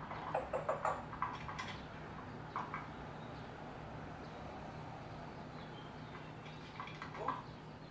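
African grey parrot making a quick run of short clicks and chirps about half a second in, another single chirp a couple of seconds later, and a short downward-sliding squeak near the end.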